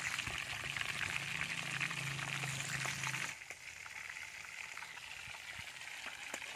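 A whole goldband snapper deep-frying in a wok of hot oil: a steady crackling sizzle. A little over three seconds in it drops suddenly in level and goes on quieter.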